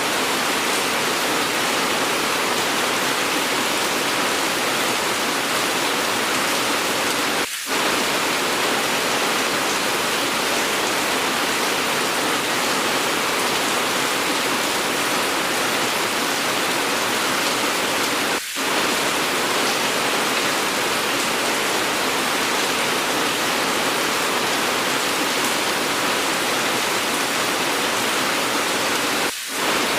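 Steady hiss of heavy rainfall from an edited rain recording, briefly dipping three times, about every eleven seconds.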